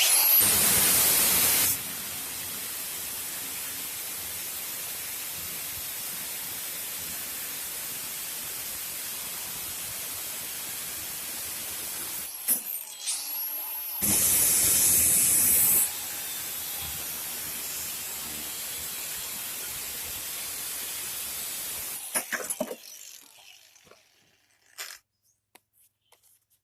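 Electric grinder with a cut-off wheel cutting through a thin strip of rusty steel barrel hoop, running with a steady hiss and high whine. The noise gets louder at the start and again about 14 seconds in. The tool stops briefly and restarts just before that second loud stretch, then winds down about 22 seconds in.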